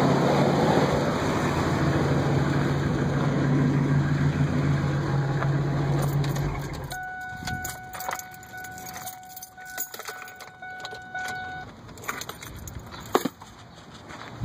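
2000 Ford F-150's 5.4-litre V8 running with the chirp of an exhaust leak at a bad exhaust pipe flange, then shut off about seven seconds in. A steady warning tone sounds for a few seconds after, with keys jangling and scattered clicks.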